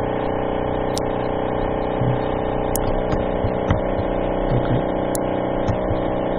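Steady background hum made of several steady tones, with a few faint ticks.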